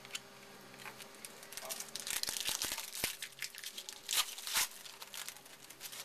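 A trading-card pack wrapper being torn open and crinkled by hand: dense crackling from about a second in, loudest around two seconds in and again just past four seconds.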